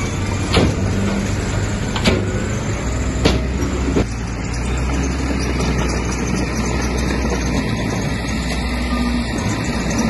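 Diesel engine of earthmoving machinery running steadily, with four sharp metallic knocks in the first four seconds, after which the engine note grows deeper and heavier for a few seconds.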